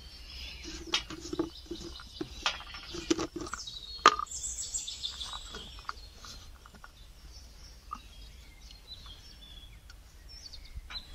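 Birds chirping in the background, with a few sharp clicks and knocks from hands working flour in a steel plate and handling a plastic jar; the loudest knock comes about four seconds in.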